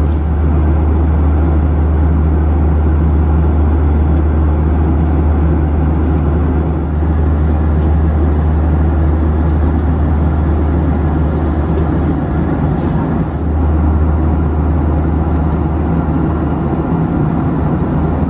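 Steady drone inside a Boeing 737's cabin in flight: the low hum of the jet engines mixed with the rush of airflow past the fuselage.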